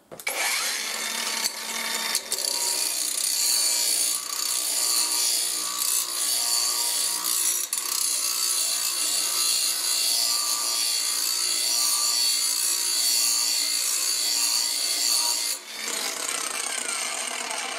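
Cordless angle grinder with a grinding disc running against the steel cutting edge of a lawn mower blade to sharpen it: a steady high motor whine with the rasp of the disc on the metal. About fifteen seconds in the grinder comes off the blade and winds down, its pitch falling.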